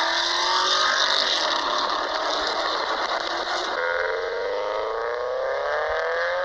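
Audi A6 4.2 V8 with a custom exhaust accelerating, its engine note rising steadily in pitch, jumping up suddenly just under four seconds in and climbing again, over a steady rushing hiss.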